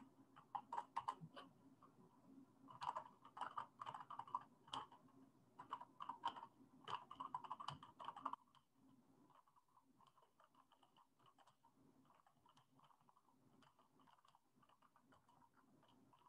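Typing on a computer keyboard: several quick runs of key clicks, which stop about eight seconds in, leaving only faint scattered clicks.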